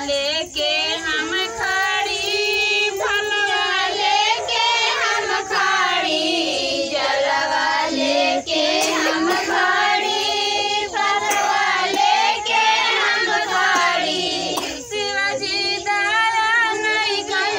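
A group of women singing a devotional song together, several voices carrying one continuous melody.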